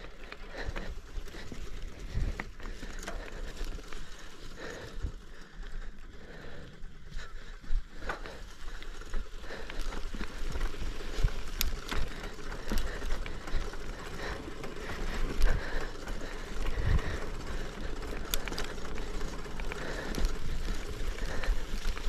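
Mountain bike riding down a rough dirt trail: a steady rumble of tyres on the ground with frequent rattling knocks as the bike goes over bumps.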